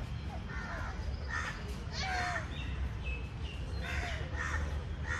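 Crows cawing repeatedly, a harsh call every second or so, with a few short high chirps from another bird in the middle and a steady low rumble underneath.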